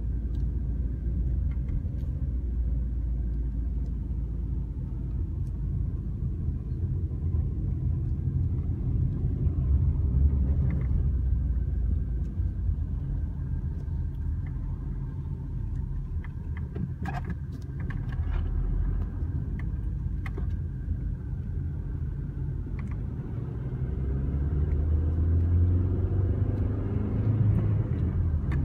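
Steady low engine and road rumble heard from inside a moving car's cabin, with a few sharp clicks about two-thirds of the way through; the rumble grows louder in the last few seconds.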